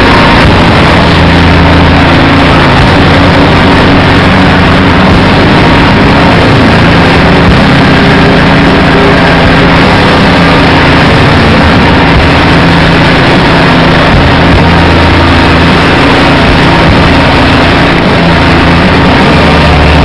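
Heavy engines running steadily with a low drone, under a loud, dense hiss that does not let up.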